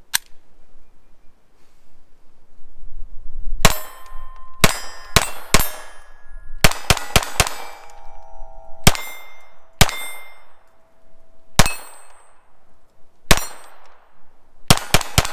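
A Taurus TX22 .22 LR pistol fires about fifteen shots at a quick, uneven pace, starting about three and a half seconds in, and each hit sets steel targets ringing. The pistol cycles Federal American Eagle rounds through without a stoppage.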